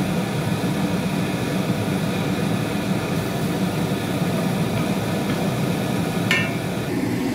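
Steady whooshing noise of a kitchen range hood fan running over a gas stove, with one short metallic clink about six seconds in.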